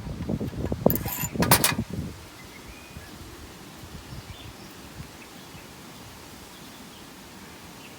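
Handling noise from work on a fryer filter pump assembly: rustling and two sharp clanks in the first two seconds, then a steady faint background with a few faint bird chirps.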